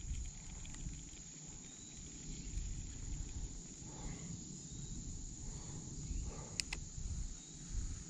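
Insects calling in a steady high-pitched drone over a low rumble, with two sharp clicks about six and a half seconds in.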